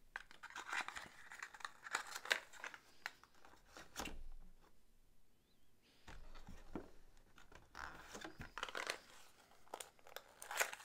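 Packaging crinkling and tearing in irregular handfuls, with sharp clicks and rustles, as a board-game miniature is unwrapped; there is a short lull about halfway through.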